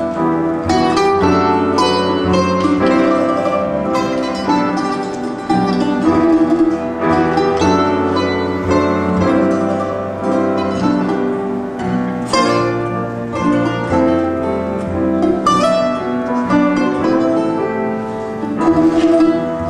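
Instrumental waltz played live on plucked acoustic strings: an acoustic guitar with a second string player accompanying, with ringing picked notes over sustained bass notes.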